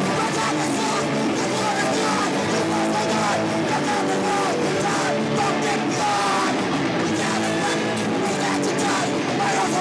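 A punk band playing live at a steady loud level: distorted electric guitar and a full band, with the singer's vocals into a handheld microphone over it.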